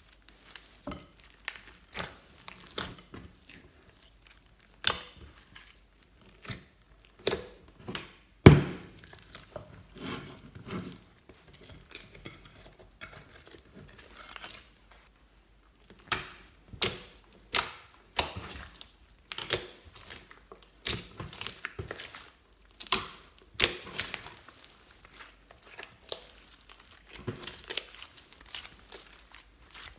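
Slime being squeezed, stretched and pressed by hand, giving irregular sticky pops and crackles, with one louder pop a little before the middle and a short pause about halfway.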